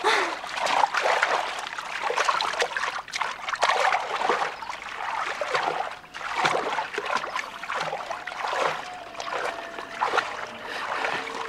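Water splashing and sloshing in uneven surges.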